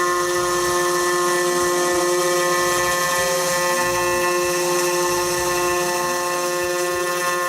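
Home-built CNC router running: its spindle gives a steady whine, under a lower motor tone that rises and falls about every two seconds as the machine moves.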